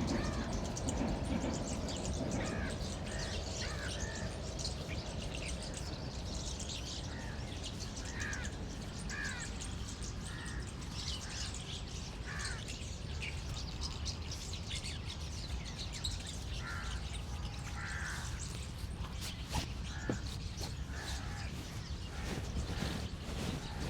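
Birds calling, short calls and chirps repeating again and again over a steady low background noise, with a few sharp taps in the last few seconds.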